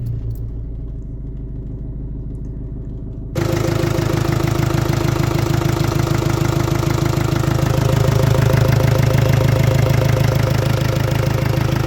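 Ford Focus C-Max 1.6 diesel engine idling steadily with a light diesel clatter, just after starting. About three seconds in, the sound jumps abruptly louder and brighter, then runs on steadily.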